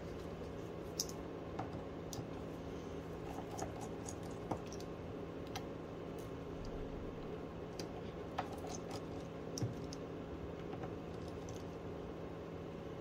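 Small, irregular clicks and taps of a screwdriver and gloved fingers on an opened smartphone's frame and internal plates as the wireless charging module's screws are undone, over a steady low hum.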